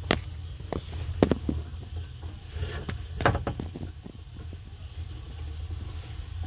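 A few light knocks and scrapes from handling inside the sink cabinet, the loudest about a second in and again around three seconds in, over a steady low hum.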